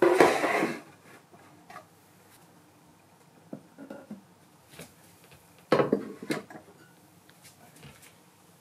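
Wooden storage crates scraping as they are slid onto a wooden shelf, then bowls set down on the wood with faint knocks and a few sharp clunks about six seconds in.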